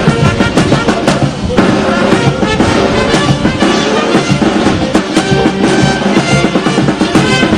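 Instrumental music with a steady drum beat.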